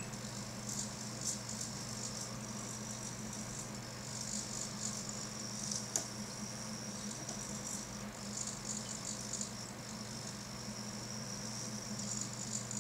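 Small hobby servos of an Arduino-driven pan/tilt laser head buzzing and chattering in short, irregular spurts as they step the laser dot around. A single sharp click comes about six seconds in.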